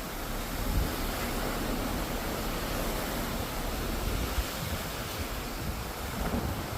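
Steady rush of the open sea heard from a moving cruise ship, with wind buffeting the microphone in low gusts.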